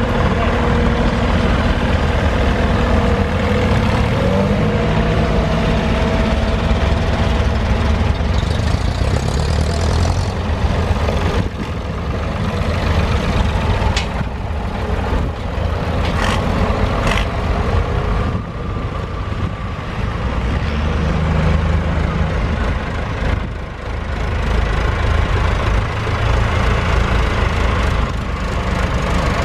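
Tractor engines running as a line of vintage and modern tractors drives slowly past one after another, with a Massey Ferguson 390 coming by near the end.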